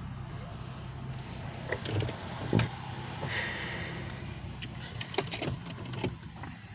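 Car engine idling, a steady low hum heard from inside the cabin, with a few sharp clicks and knocks, the loudest about two and a half seconds in.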